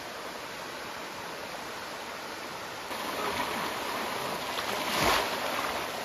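Small waterfall cascading over rocks into a pool: a steady rush of water that gets louder about three seconds in, with one brief loud burst near five seconds.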